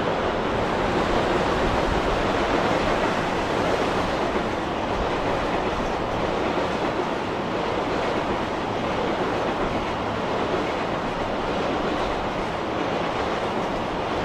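Container freight train hauled by an EF210 electric locomotive running across a steel girder railway bridge: a steady, dense rumble of wheels on rails that eases slightly as the last wagons go by.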